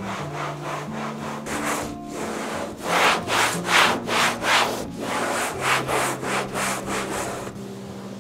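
A cloth rubbing a glass window pane in quick back-and-forth wiping strokes, about three a second, loudest in the middle.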